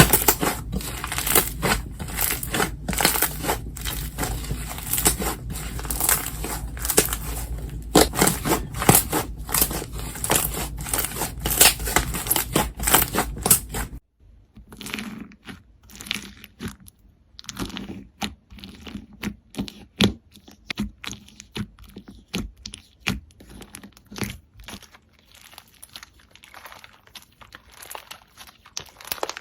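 Slime being squished, stretched and poked by hand, giving dense crackling and popping clicks. About halfway through the sound changes abruptly to sparser, quieter pops and clicks, as a different slime takes over.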